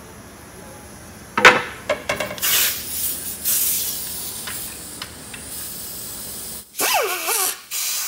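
A sharp metal clank about a second and a half in, then a pneumatic cutting tool running with a hiss as it cuts a rusted propeller-hub bolt shorter. Near the end its whine rises and falls in pitch.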